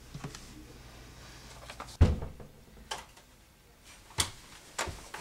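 A door kicked open with one heavy bang about two seconds in, followed by a few lighter knocks.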